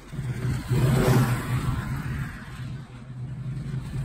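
Toro zero-turn riding mower's engine running steadily as it cuts grass, louder about a second in and again near the end.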